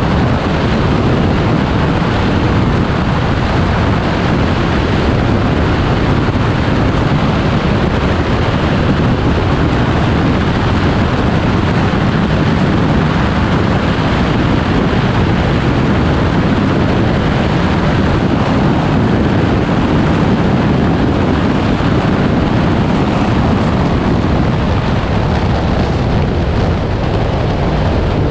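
Steady, loud wind rush and road noise from a Porsche 944S driven at speed on a race track, picked up by a camera mounted on its hood.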